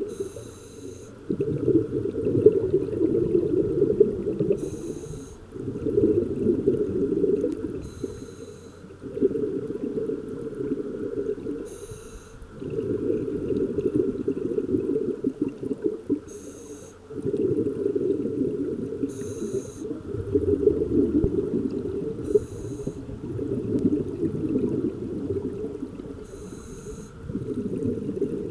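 Scuba diver breathing through a regulator underwater: a short hiss on each inhale, then a couple of seconds of bubbling rumble as the exhaled air escapes. Eight breaths, about every three and a half to four seconds.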